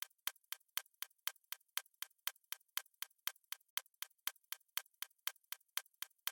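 Steady clock-like ticking, about four even ticks a second.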